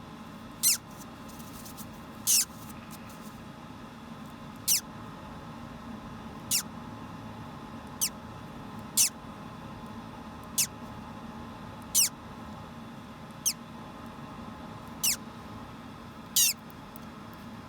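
Hatching parrot chick peeping: short, high squeaks that fall quickly in pitch, about eleven of them roughly every one and a half seconds.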